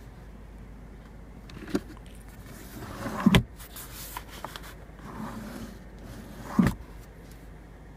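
Handling noises around a car's centre console: a light click about two seconds in, then two soft thumps, about three and six and a half seconds in, over a low steady hum.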